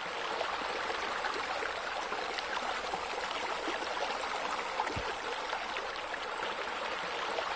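Steady splashing of running water, like a small rock waterfall spilling into a pool, with a soft low thud about five seconds in.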